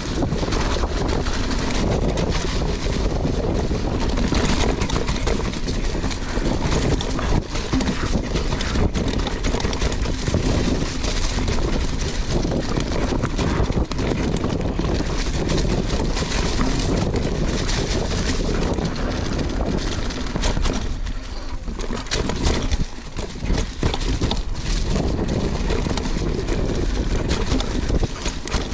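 Mountain bike riding a rough trail: wind buffeting the microphone, with the tyres and frame clattering in many short knocks. The noise eases briefly a little past the middle.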